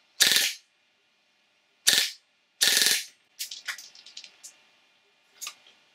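3D-printed FGC-6FA open-bolt gas blowback airsoft gun firing three short bursts of sharp gas shots, the last burst the longest, followed by a few lighter clicks. It is in its high-power setup: a stiff main spring with an extra short spring behind it.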